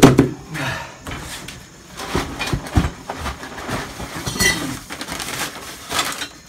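Steel cart parts clanking and knocking as they are set down and rummaged out of a cardboard box, with a heavy knock at the very start and crumpled paper packing rustling near the end.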